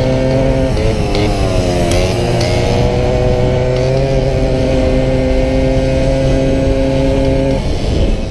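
Small single-cylinder engine of a Solex moped running at racing speed, heard from on board. The note dips about a second in and climbs back to a steady pitch, over a low wind rush on the microphone. The steady note breaks off shortly before the end.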